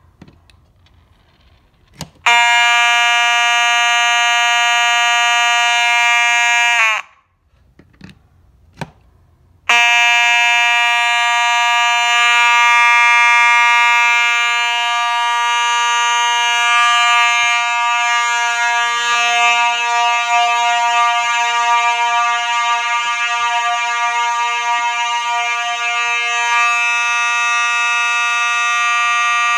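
Fire alarm horn sounding a steady, loud, buzzing tone. It comes on about two seconds in, cuts off about seven seconds in with a brief drop in pitch, two small clicks follow, and it comes back on near ten seconds and keeps going.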